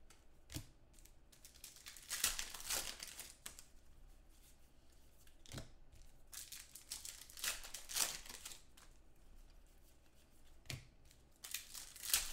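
Foil trading-card packs (2015 Contenders football) being torn open and crinkled by hand, in three separate bursts of crackling. Three short, soft knocks come between them.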